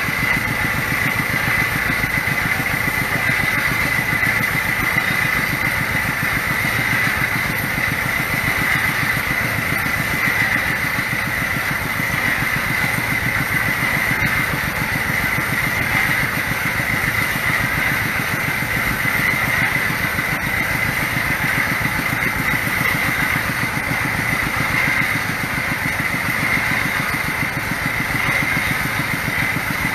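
Water-well drilling rig running steadily, its small horizontal single-cylinder diesel engine chugging with a fast even beat while the drill turns in the borehole. Drilling water sprays and splashes out around the drill head.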